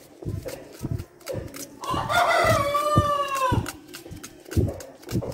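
A rooster crows once, a long call of about a second and a half in the middle that holds its pitch and drops at the end. Short soft knocks of a small knife slicing through an onion come before and after it.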